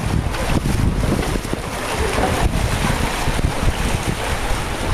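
Wind buffeting the microphone, with a steady wash of water noise beneath.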